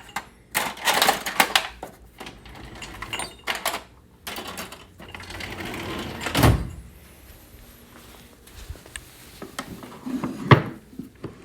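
Metal hand tools, calipers and dividers, clinking and knocking as they are picked up and set down, with a heavier knock about halfway through.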